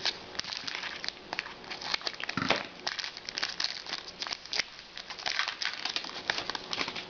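Hockey trading cards being handled and flipped through: rapid rustling and crinkling with many small clicks as the cards and packaging slide against each other.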